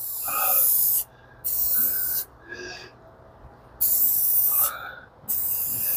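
Aerosol can of black spray paint hissing in four short sprays of about a second each, with brief pauses between them.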